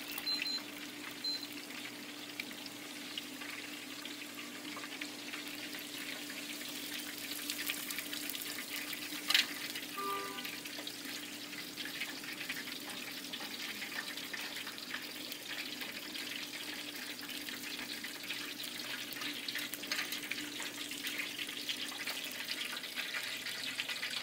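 Hot oil in a turkey deep fryer sizzling and crackling steadily as the fried turkey is hoisted out, with oil dripping back into the pot near the end. A single sharp click about nine seconds in.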